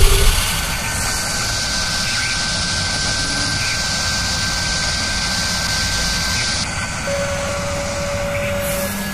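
Sound-designed high-speed drill spindle boring into metal: a steady hissing whine with a constant high tone, joined by a second, lower tone near the end.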